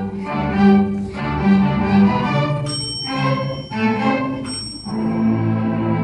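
Student string orchestra of violins, cellos and double basses playing short phrases. A small desk bell on the conductor's stand rings twice, about three and four and a half seconds in, with a ring that dies away slowly; each ring is the signal to jump to another piece, and the music breaks off and changes.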